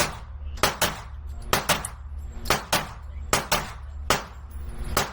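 Pistol shots at an indoor range, about eleven in all, mostly fired in quick pairs a fifth of a second apart, each shot ringing briefly.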